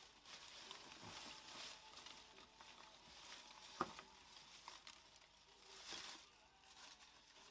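Faint rustling of a crinkled bag and dry leaf litter being shaken out into a plastic tub, with one sharp tap just before four seconds in.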